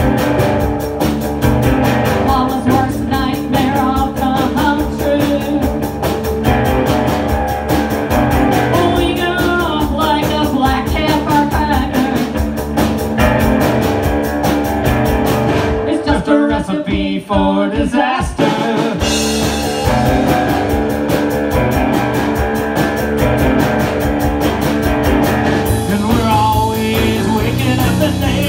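Two-piece live rock band playing, electric guitar over a drum kit. About two-thirds through, the drums and cymbals drop out for a couple of seconds while the guitar carries on alone, then the full band comes back in.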